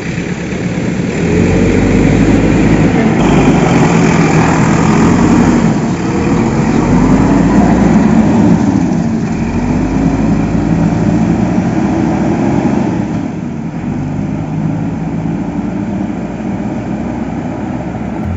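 Heavy engine running and revving up and down over and over, its pitch rising and falling; it settles a little quieter about two thirds of the way through.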